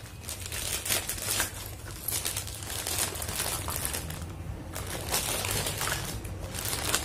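Packaging crinkling and rustling in irregular bursts as a packet of toy kitchen pieces is opened and the pieces are taken out.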